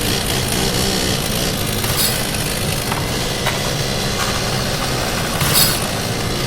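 An engine running steadily under a dense rushing noise, with a few short sharp knocks or clicks.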